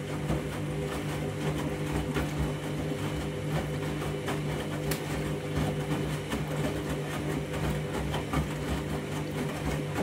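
Candy front-loading washing machine in its rinse cycle: the motor hums steadily as the drum turns, with water sloshing and the wet load tumbling and splashing inside.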